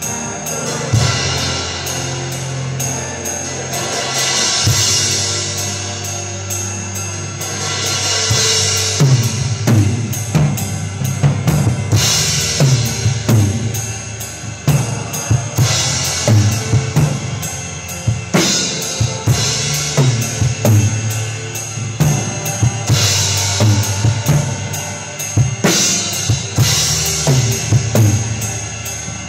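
Acoustic drum kit played live with a band: a steady kick-and-snare beat over bass, with cymbal crashes every three to four seconds. The drumming gets busier about a third of the way in.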